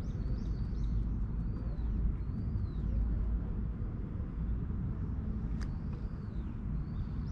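Steady low outdoor rumble with a bird calling over it in short, high, arching whistles, several in the first few seconds and again near the end; a single sharp click about five and a half seconds in.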